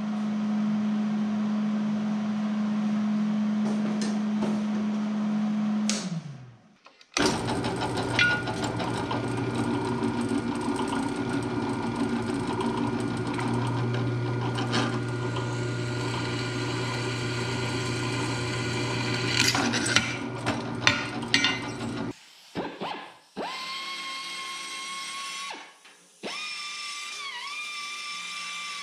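A motor hums steadily and spins down about six seconds in. Then a bench drill press runs steadily while drilling steel bed-frame angle iron. Near the end a handheld belt file grinds the steel's edge with a steady whine that dips briefly as it bites.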